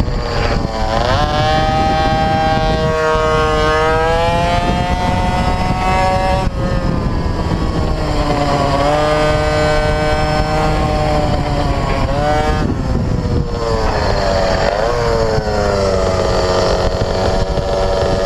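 Mini bike engine heard onboard at speed around a kart track, its pitch climbing steadily as it accelerates, then dropping abruptly twice as the rider eases off or shifts, before climbing again. A steady low rush of wind over the camera runs underneath.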